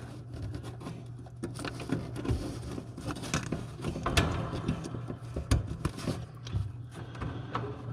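Scattered small clicks and rattles of hand tools and wire terminals being handled while a heat sequencer's leads are reconnected, over a steady low hum.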